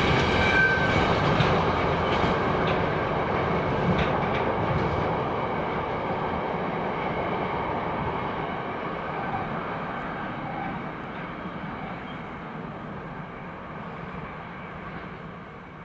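A train running past and moving away, its rumble fading steadily. A few sharp clicks and a brief high squeal come in the first seconds.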